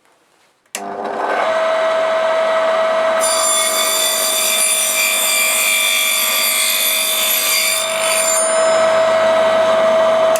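Small homemade circular saw with a fine-toothed metal-cutting disc mill as its blade, driven by a 550 W, 3000 rpm capacitor-run electric motor: switched on about a second in, it runs up to a steady whine. From about three seconds in to about eight it saws through a wooden bar, a rasping cut over the whine, then spins free again.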